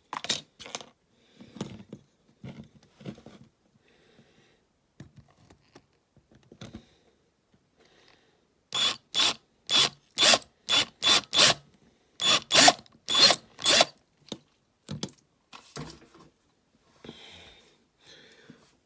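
A tool grinding at the metal rivet that holds the glass in a diecast toy car, as the rivet is drilled out. It comes in about a dozen short, rasping strokes a few times a second through the middle, with light handling taps and clicks before and after.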